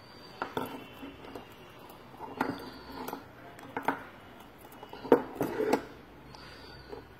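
Small steel fishing hooks and line being handled on a tabletop: a scattering of light metallic clicks and taps, the loudest about five seconds in.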